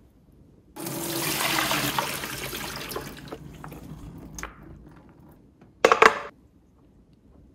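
Water and soaked raw potato fries poured from a bowl into a plastic colander in a stainless steel sink: a rush of water that starts about a second in and tails off over the next few seconds. Near the end come a couple of sharp knocks, the loudest sounds here, as the glass bowl and colander knock together.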